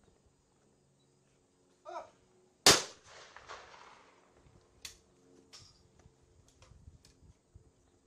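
An over-and-under trap shotgun fires a single loud shot about two and a half seconds in, the report echoing for over a second. A short call comes just before the shot, and a few faint clicks follow it.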